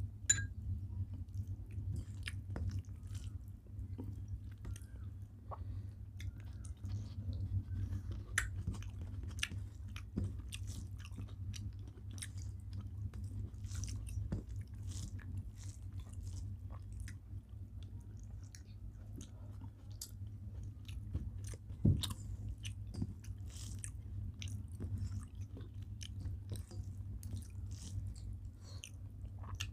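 Close-up chewing and biting of a rice-and-curry meal: many short, scattered wet mouth clicks and an occasional crunch, with two louder clicks near the start and about 22 seconds in. A steady low hum runs underneath.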